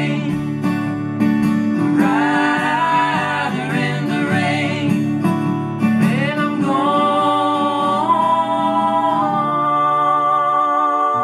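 Live acoustic performance: voices singing in harmony over two strummed acoustic guitars. About two thirds of the way in the voices settle into a long held chord.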